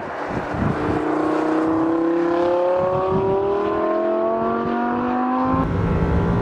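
Lamborghini Huracán LP580's V10 engine accelerating hard, its pitch rising steadily for about five seconds as it pulls through a gear. Shortly before the end the sound switches abruptly to a lower, steadier engine note heard inside the cabin.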